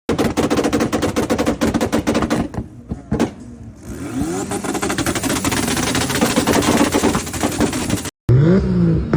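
Toyota Supra engine being revved, its exhaust crackling and popping in rapid machine-gun-like strings of backfires. The revs drop briefly about two and a half seconds in, then climb again with more crackle. A short cut near the end leads into another rising rev.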